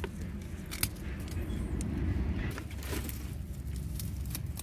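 Hand pruning shears snipping at the base of a bougainvillea trunk: a few sharp clicks, the loudest about a second in, over a steady low rumble.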